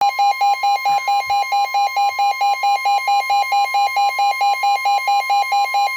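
Emergency weather alert alarm announcing a severe thunderstorm warning: a loud steady high tone with a rapid pulsing beep over it, about five beeps a second.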